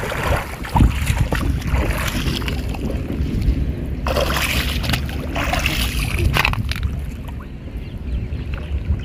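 Legs wading through shallow river water, sloshing and splashing in several irregular bursts, over a steady rumble of wind on the microphone.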